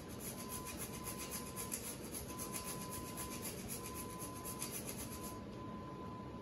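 Whole nutmeg being grated on a handheld rasp grater: quick, rhythmic dry scraping strokes that die away about five seconds in.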